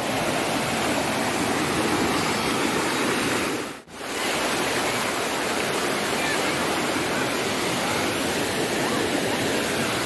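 Steady rush of a waterfall pouring down terraced rock cascades into a shallow pool. The sound drops out for a moment just before four seconds in.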